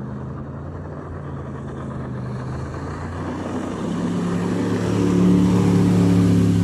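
Jet boat engines running as the boats come up the river, getting steadily louder in the second half, with a rising rush of noise on top of the engine note.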